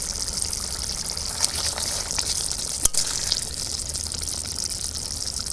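Egg curry simmering in a kadai, a steady bubbling hiss with a few sharp pops, the biggest about three seconds in.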